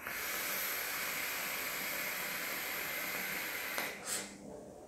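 A long drag on a Hussar Vapes Legacy single-coil dripping atomizer: a steady, smooth hiss of air pulled through its airflow for nearly four seconds, which stops abruptly. A soft breath follows.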